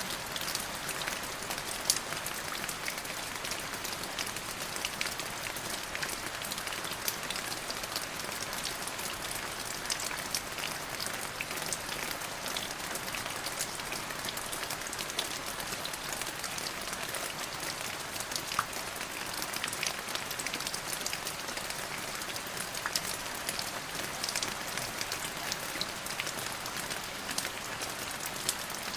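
Steady rain falling: an even hiss of rainfall with many small drop ticks hitting a surface.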